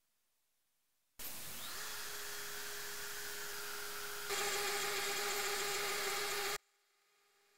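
Router spindle of a 3D-printed desktop CNC machine spinning up with a quick rising whine, then running at a steady high pitch while milling an aluminium plate. It gets louder about three seconds after starting and cuts off suddenly near the end.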